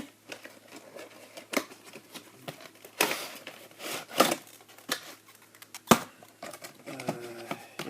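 An opened cardboard toy box and its plastic packaging being handled: scattered clicks and rustles, longer rustles about three and four seconds in, and a sharp tap about six seconds in.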